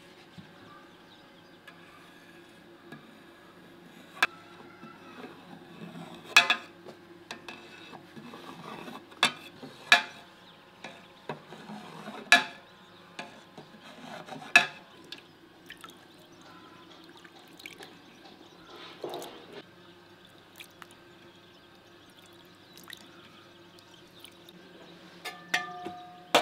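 Knife cutting through set milk curd in an aluminium pot: soft wet liquid sounds with about six sharp clicks in the first half, a few more near the end.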